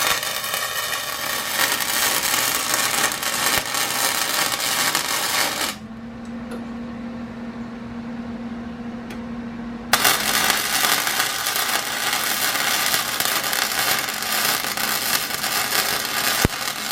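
Eastwood 135 MIG welder arc crackling steadily through two runs of about six and seven seconds. In the pause of about four seconds between them, only a steady low hum is heard.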